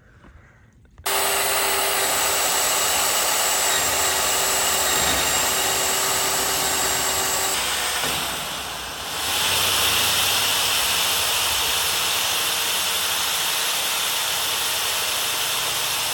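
Electric drill boring a hole so a gate fitting can be moved down. It runs steadily from about a second in, dips briefly about eight seconds in, then carries on with a higher tone.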